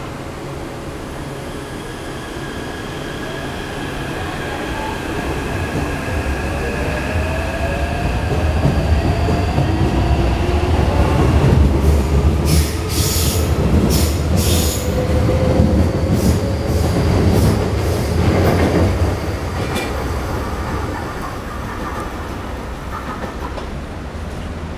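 Taipei Metro C381 electric train pulling away from the platform: the traction motors' whine rises in pitch as it accelerates over a low rumble, growing louder. A run of sharp wheel clicks comes as the cars pass, then the sound fades as the train leaves.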